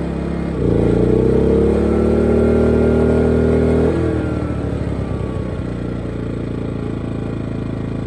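Small 2000-watt inverter generator's engine running, then surging louder and slightly higher about half a second in as the camper air conditioner switched to cool loads it. About four seconds in the engine note falls and settles back to a steady lower run: not enough power for the AC, probably the generator's overload tripping the output.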